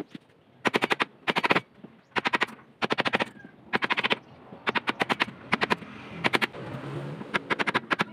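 Hand tool working a plywood board: short bursts of rapid, sharp wooden clicks, each burst under half a second, repeating about once a second.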